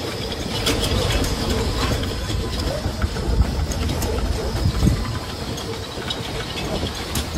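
Boat's engine running with a steady low rumble under a hiss of water and wind on the microphone, with a few light clicks and knocks.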